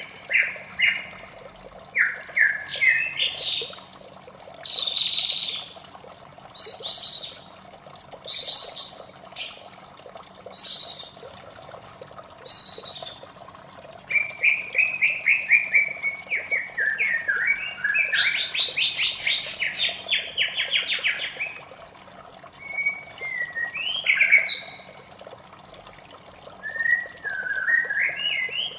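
White-rumped shama singing: varied phrases of rapid rising trills, whistles and sharp high notes, broken by short pauses. Underneath, running water makes a steady rush.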